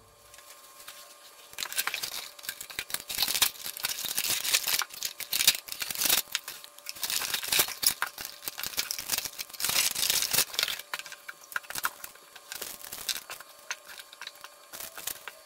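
Plastic packaging crinkling and rustling as parts are unpacked by hand from a plastic tray and bags, a dense run of crackles and light taps starting about a second and a half in.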